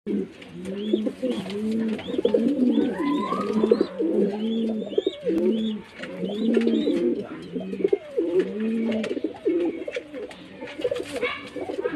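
Domestic pigeons cooing over and over in a steady rhythm of low, rolling coos. Fainter high chirps sound above the cooing in the first few seconds.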